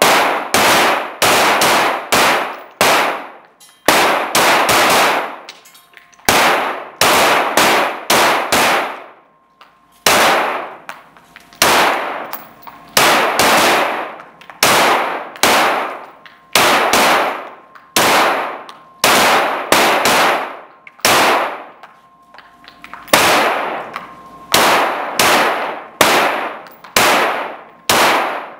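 9 mm Glock 17 Gen4 pistol firing in strings of single shots, about two a second with short pauses between strings, each shot echoing in the indoor range.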